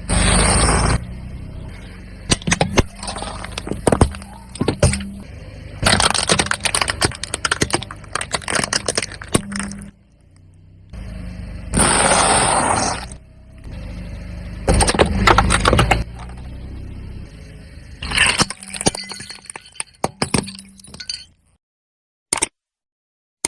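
Car tyre crushing objects: repeated crunching and cracking, with two loud noisy surges, one at the very start and one about twelve seconds in, over a car engine's low running. The sound stops abruptly near the end.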